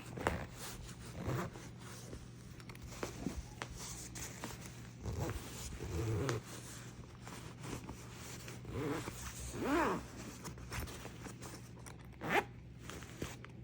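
The zipper on an outdoor couch cushion being slowly zipped closed with a no-sew plastic replacement zipper pull, in short, uneven stop-start pulls.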